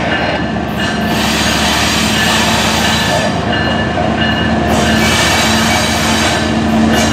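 CSX freight train's diesel locomotives approaching at low speed: a steady engine drone that grows a little louder, over the rumble of the train on the rails, with thin high wheel squeal coming and going.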